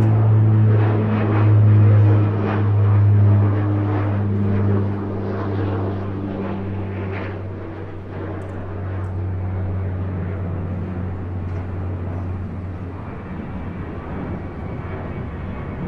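Airplane engine droning with a steady low hum, loud and pulsing for the first five seconds, then gradually fading.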